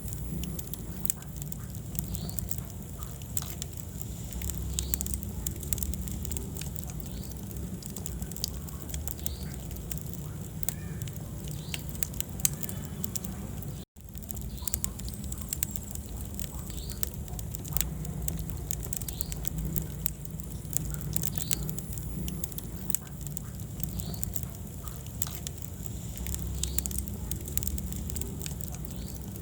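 Wood fire burning in a fireplace: frequent sharp crackles and pops over a steady low rumble of the flames. The sound cuts out for an instant about halfway through.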